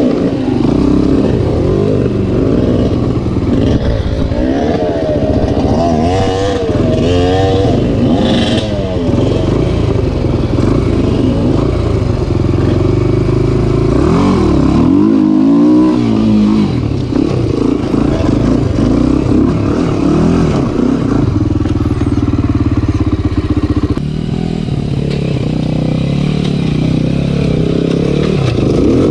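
Honda 250X ATV engine running, its pitch rising and falling again and again as the throttle is worked, then holding steadier and dropping a little lower near the end.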